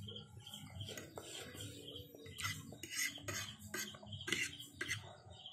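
Cutlery clinking and scraping against a dish during eating, a run of short clatters through the middle few seconds.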